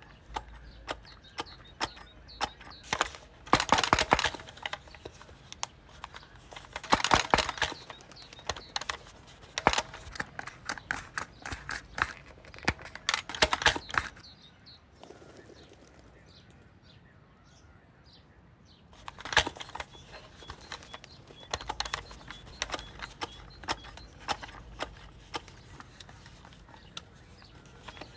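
Sound effects of a plastic toy figure moving: scattered clicks and taps with short scuffing, rustling bursts, and a quieter stretch about halfway through.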